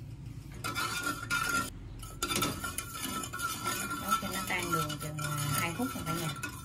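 Metal spoon stirring and scraping around an aluminium pot of soy-sauce dressing, with a thin metallic ring, as sugar is stirred in to dissolve. It starts about half a second in and pauses briefly near 2 s.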